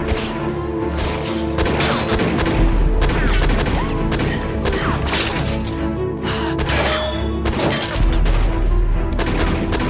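Tense dramatic score with a series of sharp bangs over it, scattered through the whole stretch.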